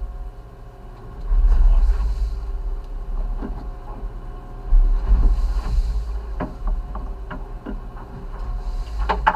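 Fishing boat's engine running steadily under a low rumble that swells twice, with scattered short knocks.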